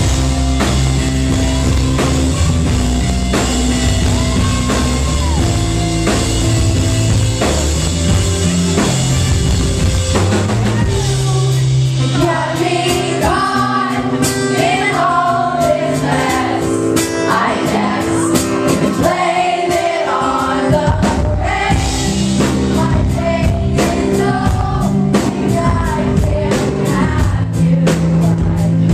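Live pop-rock band performing with drums, guitar and bass, a female lead voice singing through much of it, as heard from the audience through a camera microphone.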